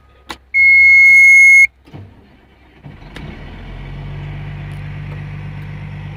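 A loud, steady electronic beep lasting about a second as the key is turned, from the cab monitor of a Caterpillar 345 excavator. About three seconds in, the diesel engine starts and settles into a steady run.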